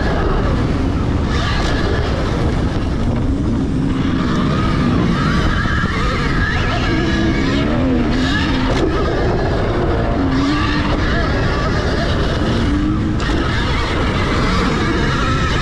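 Dirt bikes racing on a motocross track: a constant rush of wind and tyre noise, with the motor pitch rising and falling over and over as the bikes accelerate and back off through the corners and jumps.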